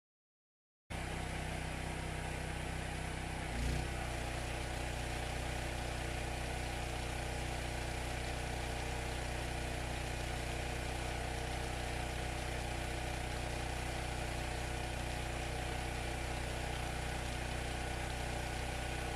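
Generator engine running steadily to power a well pump, starting about a second in, with water gushing from the well's outlet pipe onto the ground. A brief knock a few seconds in.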